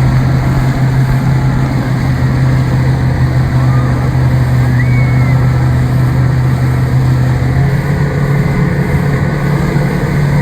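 Motorboat engine running steadily at speed, with water and wind noise; its hum rises slightly in pitch about eight seconds in.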